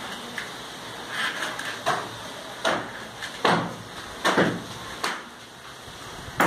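Hammer blows against a masonry wall, about six strikes at roughly one a second, each a sharp knock with a short ring.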